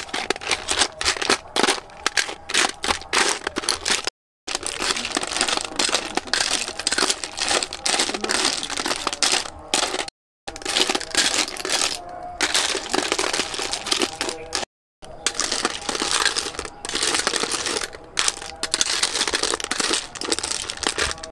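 Metal spoon scraping and snail shells clattering against a steel tray as the snails are stirred, a dense rapid run of clicks and rattles. It cuts to dead silence briefly three times.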